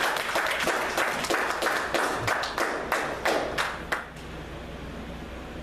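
Congregation applauding, with many hands clapping, then dying away about four seconds in to a low room hum.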